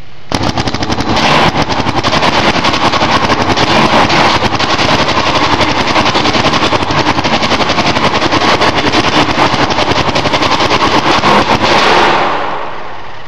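Paintball marker firing a rapid, unbroken string of shots for about twelve seconds, echoing off the walls of a large metal building. The firing starts about a third of a second in and stops about a second before the end, tailing off.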